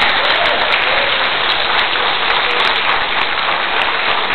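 Audience applauding, loud and steady, with many sharp individual claps.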